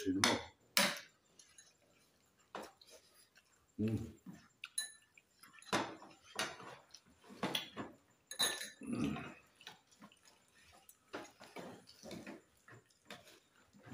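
Eating by hand at a table: scattered sharp clicks and wet smacks from chewing, lips and fingers, and serving spoons tapping ceramic bowls. A short low murmur of voice comes about 4 seconds in and again about 9 seconds in.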